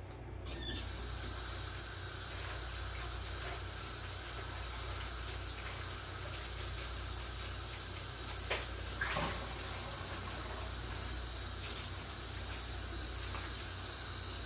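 Kitchen sink tap turned on about half a second in and running steadily into the sink, with a couple of brief knocks of dishes being handled about two-thirds of the way through.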